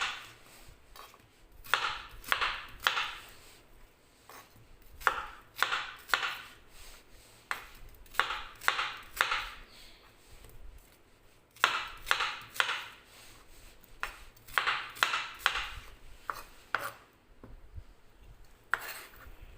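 Kitchen knife chopping a pear into pieces: short runs of a few quick cuts, with pauses between the runs.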